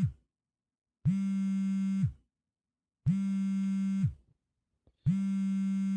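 Phone ringing: a buzzy electronic tone about a second long, repeated every two seconds, each ring dropping in pitch as it cuts off. Three full rings, after the tail of one at the start.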